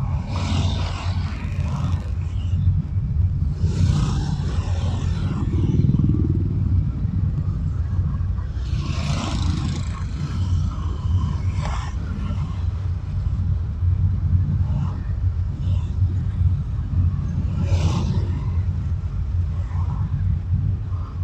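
Traffic on a busy main road heard from a moving car: a steady low rumble of the car's own road and engine noise, with several vehicles passing in brief rushes of noise, the clearest around four seconds in, around nine seconds in, and near the end.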